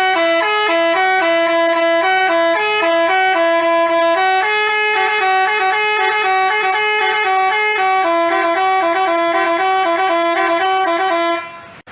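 Telolet basuri bus horn, a multi-tone musical air horn, playing a fast tune of quick stepped notes, then cutting off abruptly near the end.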